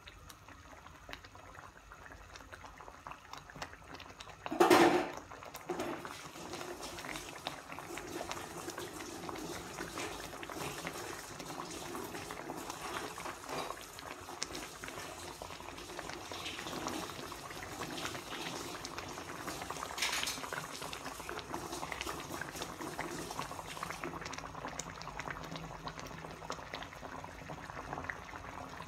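Thick red gravy simmering in a wide pan on a gas burner, bubbles popping and plopping steadily. A single brief loud knock about five seconds in.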